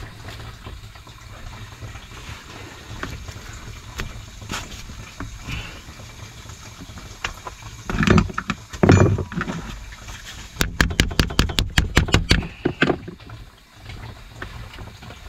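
Hands handling white Speedfit plastic pipe and push-fit fittings: scattered knocks and rustling, two loud clunks about eight to nine seconds in, then a quick run of about a dozen sharp clicks lasting about two seconds. A steady low hum runs underneath.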